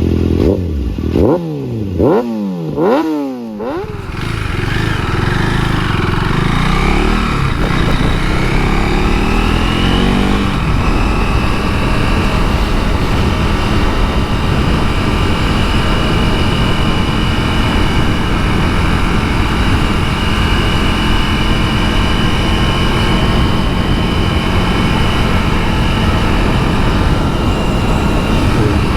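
KTM 390 Duke's single-cylinder engine accelerating hard through about four quick upshifts, the pitch climbing and dropping with each gear. It then pulls more gently and settles into a steady cruise, with heavy wind rush on the microphone.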